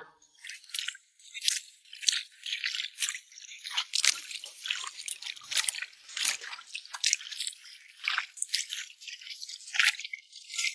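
Rubber boots wading through shallow water over mangrove mud: an irregular run of short splashing, crackling clicks, several a second.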